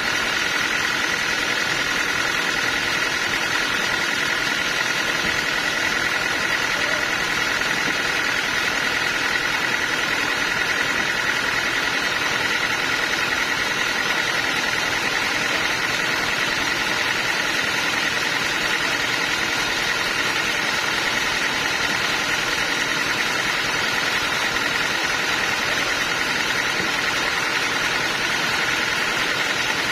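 Sawmill machinery running steadily, with a constant high whine over a broad mechanical drone.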